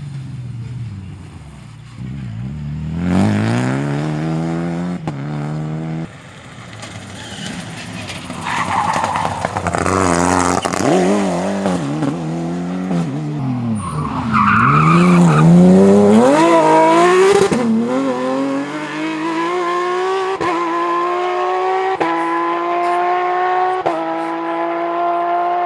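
Rally car engines revving hard through a series of passes, pitch climbing and dropping with throttle and gear changes, with tyre squeal. Near the end one car accelerates in a long rising run through several upshifts.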